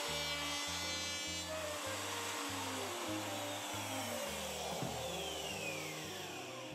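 Handheld wood router cutting a notch in an oak-veneer panel, then switched off and spinning down, its whine falling steadily in pitch over the last three seconds. Background music with a stepping bass line plays throughout.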